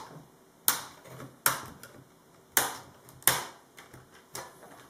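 Plastic snap clips of an ASUS Eee PC 1215B screen bezel popping loose as a knife pries the bezel off, five sharp clicks at irregular intervals.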